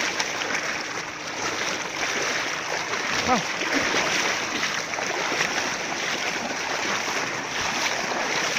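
A Staffordshire bull terrier wading fast through shallow river water, its legs churning up a steady, continuous splashing.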